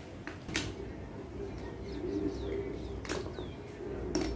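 A few sharp metal clicks and knocks as a manual concrete nail tucker and hammer are handled and set against a concrete block. Birds call in the background, including a few short chirps that fall in pitch.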